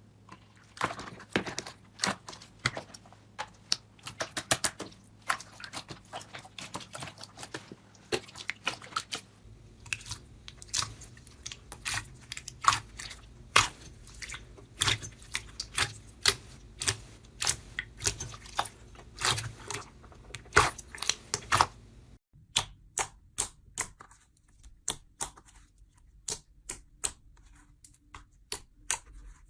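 Slime being pressed and poked by hand, giving a stream of sharp pops and crackles. About two-thirds of the way through the clip changes to a quicker, more even run of clicks.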